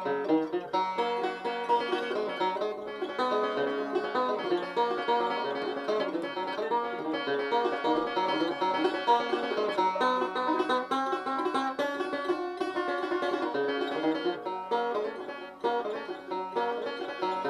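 Five-string banjo played solo, a fast instrumental break of rolling picked notes in a bluegrass style. The banjo is only roughly in tune.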